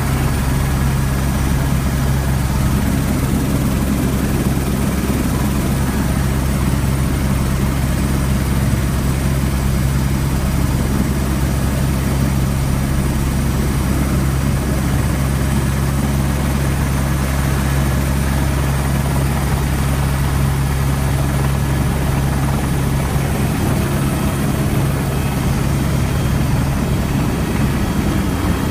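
Helicopter in flight heard from inside the cabin: a loud, steady drone of engine and rotor with a strong low hum.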